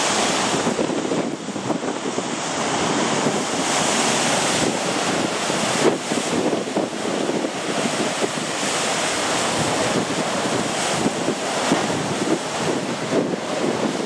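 Heavy Mediterranean surf breaking and churning against rocky cliffs in a continuous rush, with wind blowing on the microphone.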